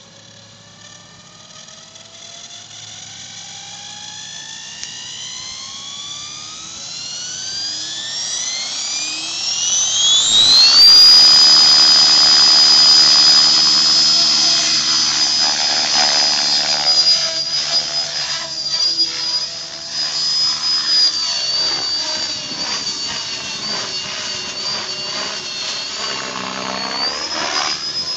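Electric RC helicopter, a Thunder Tiger X50-E with a Hacker Turnado 580KV brushless motor, spooling up on the ground: a motor whine rising smoothly in pitch for about ten seconds, then holding a loud, steady high whine with the rotor blades chopping the air at flight headspeed. From about the middle on the whine wavers slightly in pitch and the rotor sound rises and falls.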